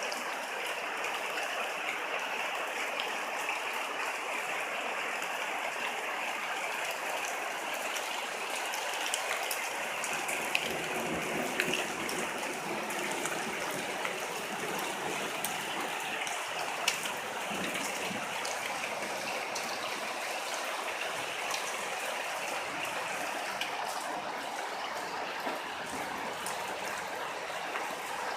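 Steady rain falling, an even hiss with scattered sharper ticks of single drops striking.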